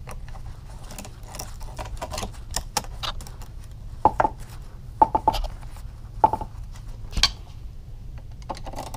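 Irregular metallic clinks and taps of a 5 mm Allen bit and case bolts against the crankcase halves of a Yamaha YZ250 two-stroke engine as the bolts are run in a couple of turns each, a few of the clinks ringing briefly.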